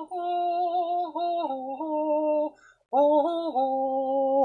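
A man singing two long held phrases, each a few sustained notes stepping up and down in pitch, with a short break about two and a half seconds in.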